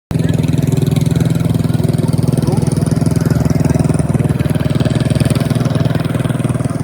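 Motor vehicle engine running steadily at a constant speed, with a fast, even pulse and no revving.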